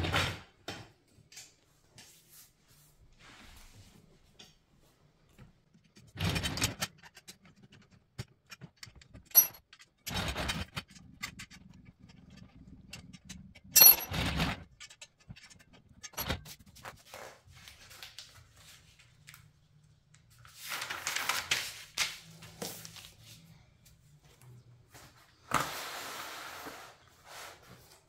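Powder-coated steel tubes of a clothes rack being handled and fitted together: scattered metal clinks and knocks with rubbing and rustling between them. Two sharp clinks stand out, about a third of the way in and about halfway through.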